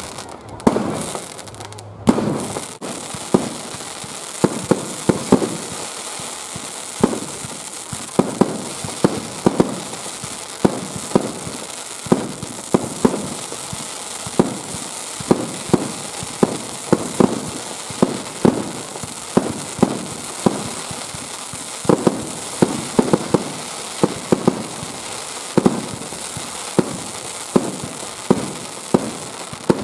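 Aerial fireworks display: a rapid, continuous barrage of shell bursts, several loud bangs a second with echoes trailing after each, over a steady crackle from the sparkling shells.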